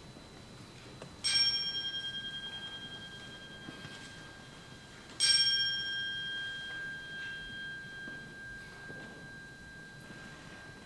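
Crotale (antique cymbal) struck twice, about four seconds apart, on the same high note; each stroke rings on and fades slowly, the first with a slight pulsing as it dies away.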